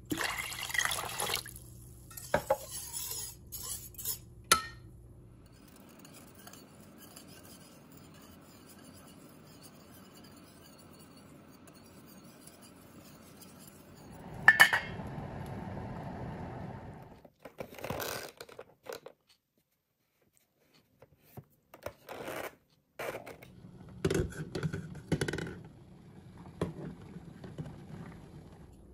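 Kitchen cooking sounds: metal pots and dishes clinking and water moving in a pan. They come in several separate bursts, with sharp clinks and short quiet gaps between them.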